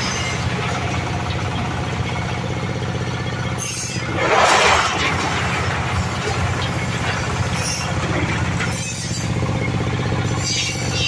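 Engine-driven oil palm loose-fruit threshing machine running steadily, its small engine humming under the rattle of palm fruitlets tumbling through the grate and out of the chute. A louder rushing clatter lasts about a second, a little over four seconds in.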